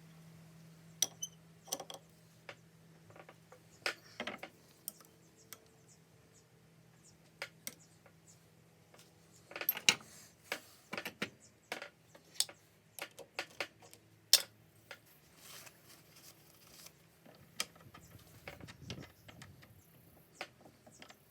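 Scattered metallic clicks and clinks as steel measuring tools, a micrometer and the steel workpiece are handled on the bench. A faint steady hum is underneath, strongest near the start.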